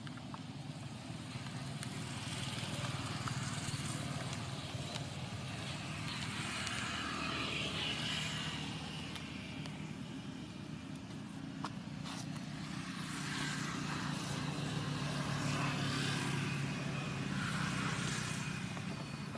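Motor vehicle traffic going by: a steady low engine hum with a hiss that swells and fades twice as vehicles pass.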